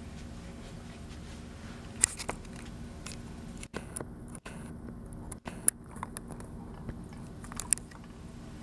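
A few scattered faint clicks and taps over a low steady hum, with the sound cutting out for an instant three times in the middle.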